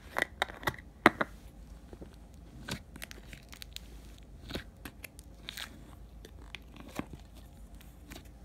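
A plastic screw-top slime container being twisted open with a few sharp clicks in the first second, then fingers poking and pressing a clay-based slime, giving scattered small clicks and pops.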